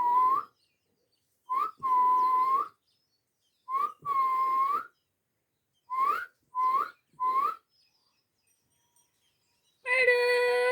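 Pet parrot whistling in answer to a request to whistle: a short rising note followed by a longer held note, twice, then three short rising notes. Near the end comes a harsher, fuller call.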